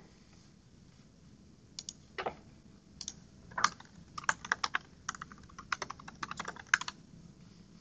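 Typing on a computer keyboard: a run of irregular key clicks, starting about two seconds in and coming faster from the middle on.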